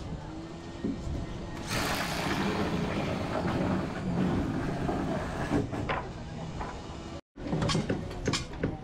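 Construction-site noise: a machine or vehicle engine running with a rushing hiss. After a short break, a string of sharp knocks from work on the wooden wall formwork panels.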